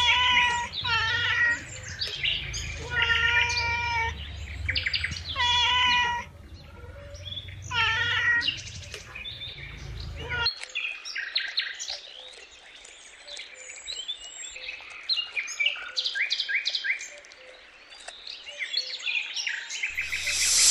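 A cat meowing again and again, drawn-out pitched meows about every two seconds for the first half. Then rapid, high bird chirps take over, and a snake's hiss starts right at the end.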